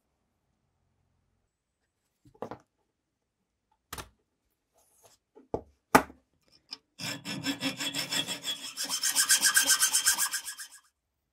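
A few sharp clicks and knocks of small metal parts handled on a wooden bench, the loudest about six seconds in. From about seven seconds, a hacksaw cuts a metal pin that is a little too long, held in a vise, with rapid, even strokes that grow louder and stop shortly before the end.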